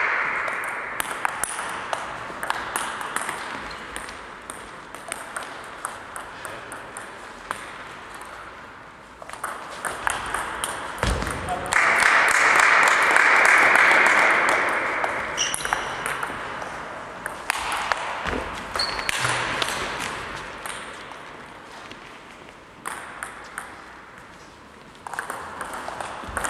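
Audience applause that swells and fades several times, thinning to a few separate claps between the louder waves.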